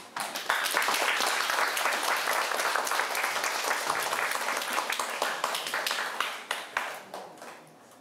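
Audience applauding at the end of a talk, thinning out and fading near the end.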